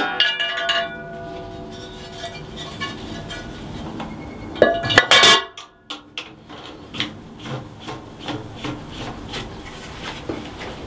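Metal clanks, taps and scraping from handling the top cover onto the cylinder head of a stopped Lister 6/1 CS diesel engine. There is a ringing clank at the start and a louder ringing clank about five seconds in, then lighter knocks and rubbing.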